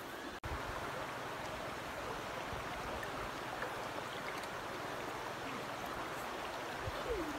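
River water flowing, a steady rushing noise, broken by a momentary dropout about half a second in.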